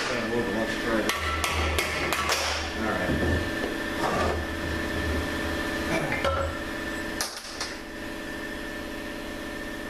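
Hammer blows on parts of a 42RLE transmission being knocked free during teardown: a quick run of about five strikes about a second in, and two or three more near the end, over a steady background hum.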